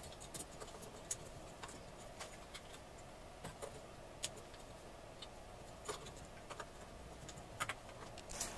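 Faint, scattered light clicks and metallic taps as the brush plate and end plate of a large Ford starter motor are handled and seated on the motor housing, over faint room noise.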